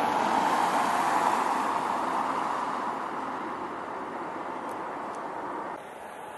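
Airbus A380's four jet engines heard as a loud rushing roar that slowly fades away, with a sudden drop in level near the end.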